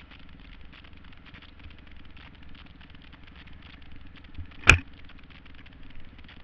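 2007 Kawasaki KX250F dirt bike's single-cylinder four-stroke engine running steadily and low under trail riding. A single sharp knock stands out about three-quarters of the way through.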